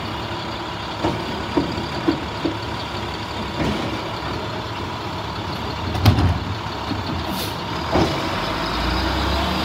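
Automated side-loading garbage truck running while its hydraulic arm tips a green compost cart into the hopper, with a steady whine and a series of knocks as the cart is emptied. The loudest bang comes about six seconds in, another thud about eight seconds in as the cart is set back down, and the engine's low rumble swells near the end.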